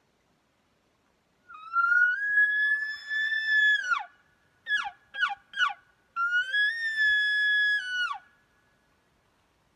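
Elk bugle call blown by a hunter: a long high whistle that rises, holds and then drops sharply, three quick falling notes, then a second long whistle that drops off at the end.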